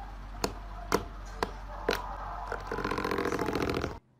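Electric pedestal fan running with a steady hum while a cat paws at its grille: five sharp clicks about half a second apart, then a rapid buzzing rattle over the last second or so that cuts off suddenly.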